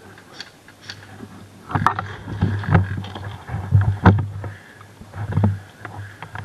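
Irregular soft knocks and rustling, as of a player moving about in airsoft gear, with a steady low hum setting in about two seconds in.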